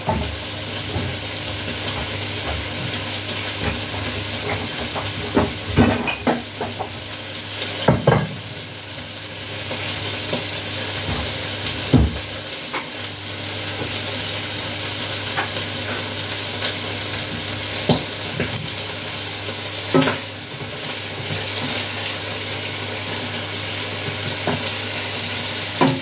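Stir-fry ingredients sizzling steadily in a hot pan, with a few sharp knocks and clinks of utensils and containers now and then.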